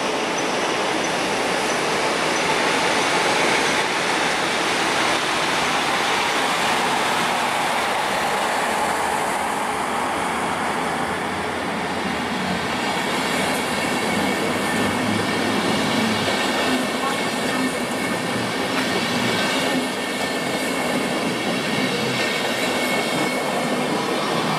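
A DB class 110 electric locomotive and its passenger coaches rolling slowly past at close range. The wheels run over the rails with a steady rumble, and thin high squealing tones come in over the second half as the coaches go by.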